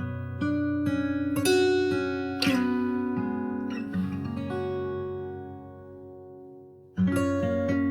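Background music of plucked acoustic guitar; it dies away to a low level, then starts up again abruptly near the end.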